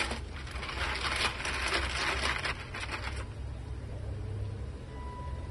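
Ice cubes crunching and shifting under a seal pup as it moves its head through them in a plastic tub: a dense crackling with small clicks for a few seconds, then dying down.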